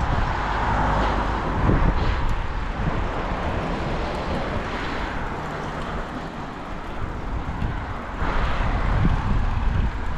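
Wind rushing over the microphone and a low rumble while riding a bicycle, swelling louder about a second in and again near the end.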